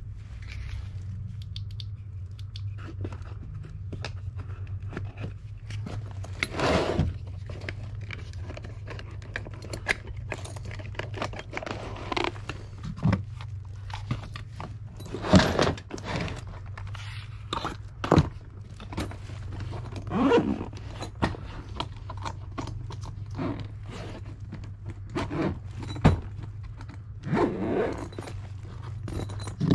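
Tools being handled and packed away: irregular scrapes, clunks and rustles of a cordless drill and a tool bag being picked up and moved, over the steady low hum of the air handler running with its new electric heat strip.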